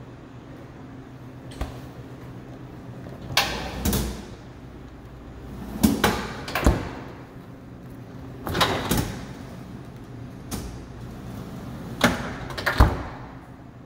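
Built-in refrigerator's pull-out freezer drawers sliding open and shut on their runners, about five times, several strokes ending in a sharp knock as a drawer closes.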